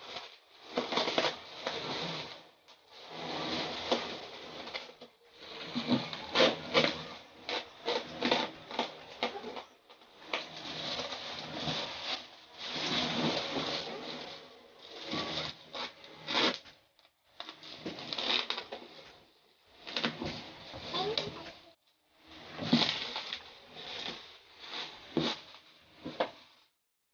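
Bubble wrap and plastic packing tape being cut and pulled off a cardboard box: spells of plastic crinkling and rustling with sharp crackles, broken by short pauses.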